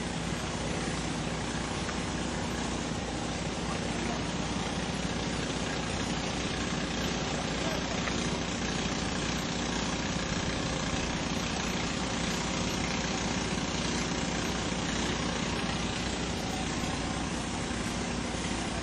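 A steady engine drone, like a motor idling, at an even level with no breaks.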